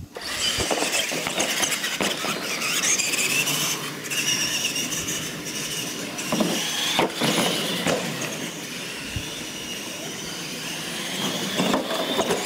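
Radio-controlled monster trucks racing across a concrete floor, their electric motors and gears whining high, rising and falling in pitch as they speed up and slow, with several sharp knocks along the way.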